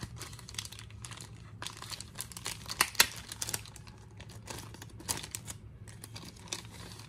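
Clear plastic bag of trading cards being handled and pulled open, crinkling with irregular sharp crackles, the loudest about three seconds in.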